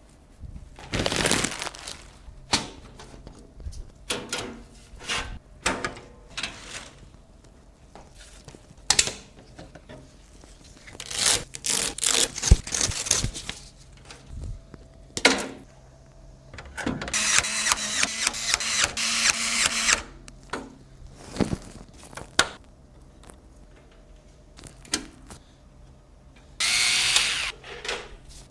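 Hands working on PC parts during assembly: scattered clicks, knocks and short rustles, with a longer noisy whirring stretch of about three seconds in the middle and a shorter one of about a second near the end.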